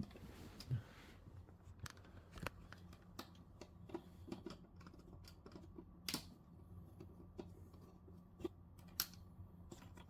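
Faint, irregular clicks and taps of a screwdriver and loose screws being worked out of an old television's casing.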